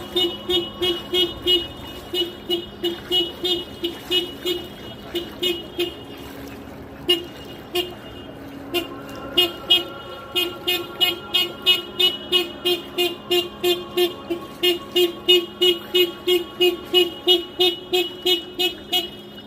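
A car horn sounding in rapid short toots, about three a second, breaking off briefly twice, the pattern of a car alarm going off. A faint steady hum runs underneath.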